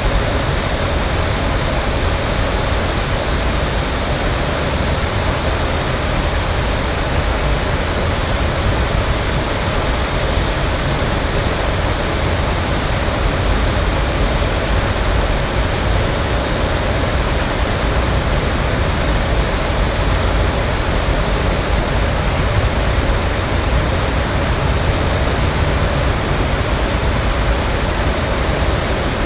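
Steady, unbroken roar of city traffic with a heavy low rumble, without any single passing vehicle standing out.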